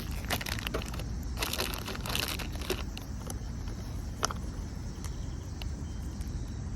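Crackling, crunching clicks of a store-bought rotisserie chicken being pulled apart by hand, dense for the first few seconds and then only a few scattered clicks, over a steady low rumble.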